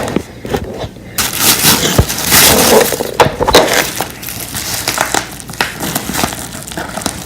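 Packaging wrap being crinkled and torn open by hand, a busy irregular crackling that starts about a second in.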